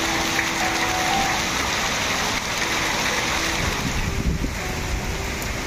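Heavy storm rain pouring in strong wind: a steady rushing downpour, with gusts buffeting the microphone from about four seconds in.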